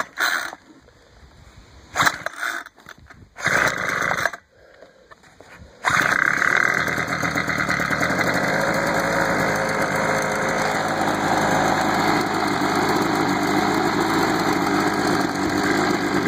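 Homelite two-stroke leaf blower being pull-started cold on half choke: a few short bursts from the starter pulls, then about six seconds in the engine catches and runs steadily.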